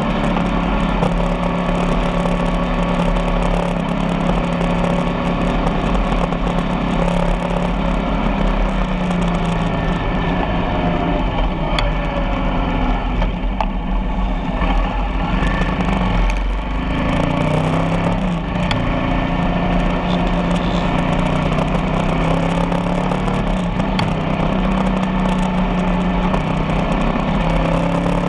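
Motorcycle engine running under way, its pitch rising and falling with the throttle and dipping briefly about two-thirds of the way through, over steady road noise.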